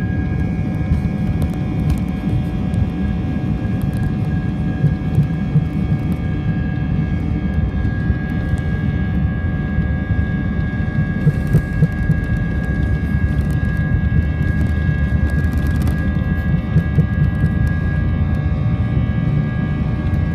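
Airbus A320 jet engines heard inside the cabin, running at low taxi power: a steady low rumble with a constant high whine.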